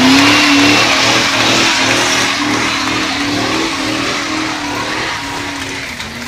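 Car engine revving up and down repeatedly during a burnout, over the hiss of spinning tyres. Both grow steadily quieter.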